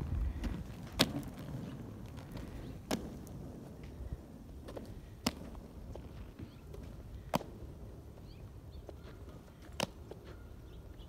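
Quad roller skate wheels rolling on asphalt, a low rumble loudest in the first second and fading as the skater moves off, with a sharp click every couple of seconds.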